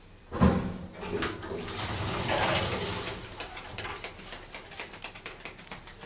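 KONE elevator car in operation: a low thump about half a second in, then a rush of noise that swells and fades over a couple of seconds, with light clicks and ticks after.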